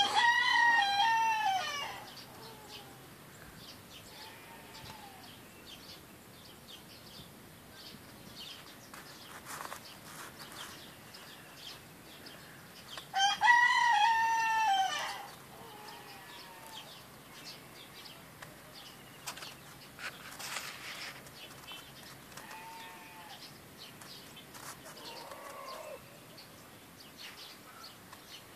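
A rooster crowing twice, each crow about two seconds long, the second coming about thirteen seconds after the first. Faint short bird calls come in between.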